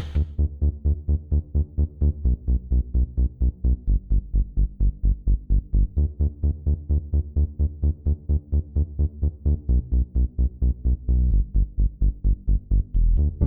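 Electronic dance music with a fast, steady bass beat, about four beats a second.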